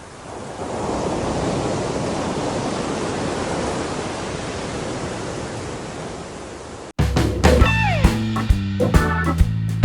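Steady rushing noise of surf and wind at the shore. About seven seconds in it cuts off abruptly, and background music with plucked guitar and a steady beat takes over.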